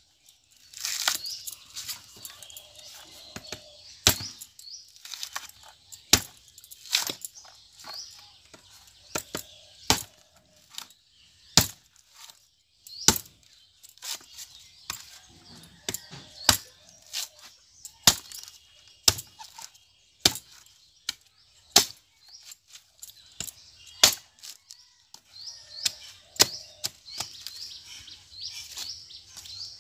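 A large curved blade hacking the green husk off a coconut: a long run of sharp chops, irregularly spaced at about one a second, with pieces of husk splitting away. Birds chirp in the background.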